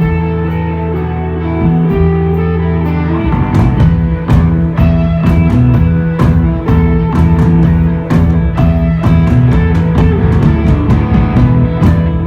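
A desert rock band playing live: electric guitar and bass holding low sustained notes, then the drum kit comes in hard about three seconds in and the band plays on at full volume.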